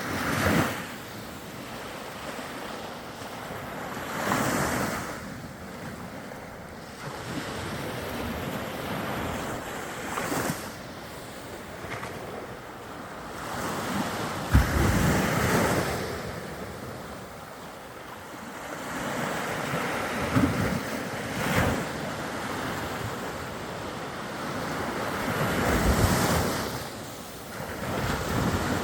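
Baltic Sea waves washing onto the beach, swelling and fading every few seconds, with wind gusts buffeting the microphone a few times.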